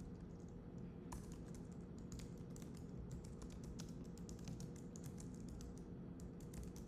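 Typing on a computer keyboard: a run of quick, irregular keystrokes, faint, over a low steady hum.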